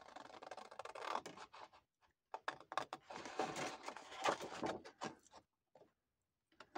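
Scissors cutting through a sheet of scrapbook paper, in two stretches of snipping separated by a short pause about two seconds in.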